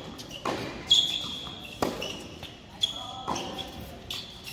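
Tennis rally on an indoor hard court: sharp racket-on-ball hits and ball bounces about once a second, ringing in the hall, with short high squeaks of court shoes between them.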